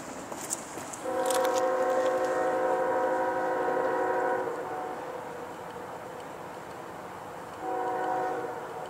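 Freight diesel locomotive's multi-chime air horn sounding one long blast of about three seconds, then a short blast near the end: the crossing warning as the train nears the grade crossing.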